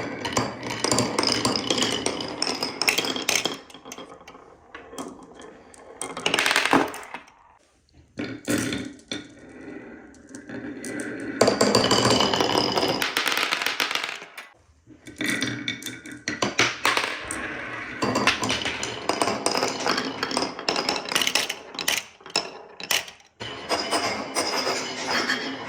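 Marbles rolling and clattering down a wooden marble run, a rattling roll full of clicks and knocks. It comes in several runs with brief lulls between them.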